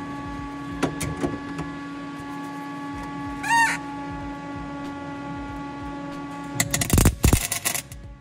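MIG welder striking an arc for a tack weld: a dense crackle and sputter lasting about a second and a half near the end, the loudest thing heard. Before it, a steady hum with a short rising chirp about three and a half seconds in.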